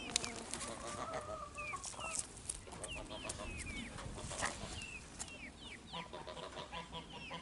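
Chickens clucking, with many short high calls throughout. Geese start honking about six seconds in.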